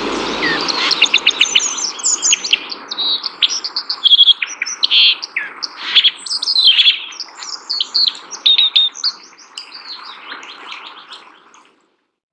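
White-throated dipper calling: a long, rapid string of varied high chirps, short trills and quick down-sweeping notes, over a steady rushing background noise. It stops about half a second before the end.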